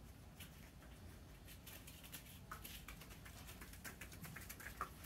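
A dog eating or drinking from a metal bowl: faint, irregular small clicks and ticks, several a second.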